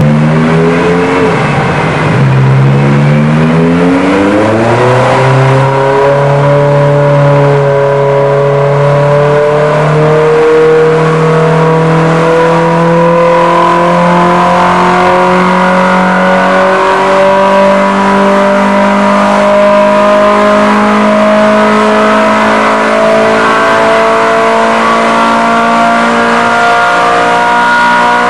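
Ferrari 360 Modena Spider's 3.6-litre V8, fitted with a Supersprint exhaust, running loud under load on a chassis dynamometer. Its revs climb, dip briefly about a second and a half in, climb quickly again, then rise slowly and steadily through a long pull.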